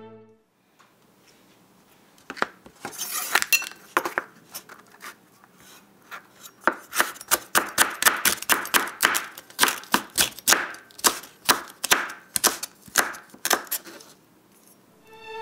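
Kitchen knife slicing green peppers on a wooden cutting board. A few scattered cuts come after a short lull, then a steady run of quick chops at about three a second.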